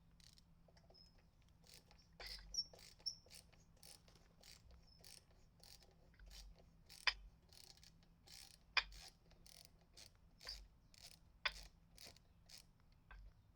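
Faint, irregular small clicks and scrapes from hand work on a metal electrical panel as it is being opened, with a few sharper metallic clicks standing out.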